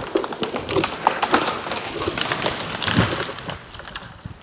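Branches and twigs crackling and snapping in a dense, irregular run as a hung-up tree is winched free, tailing off near the end.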